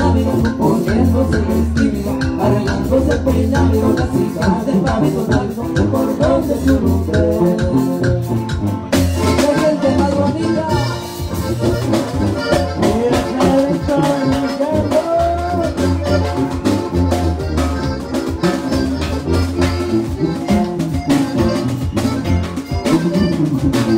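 Live norteño band playing: button accordion melody over an oom-pah tuba bass line and a drum-kit beat, with a singing voice.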